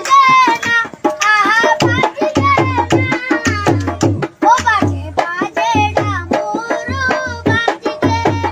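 A boy singing a Garhwali folk song in a high, ornamented voice over a steady drum and percussion beat.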